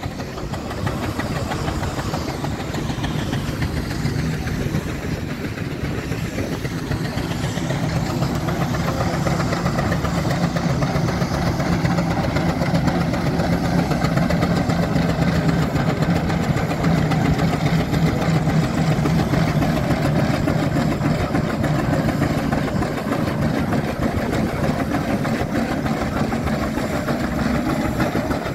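Steam traction engine working as it hauls a loaded passenger trailer across a grass field, over a steady low hum of other engines, growing louder through the middle.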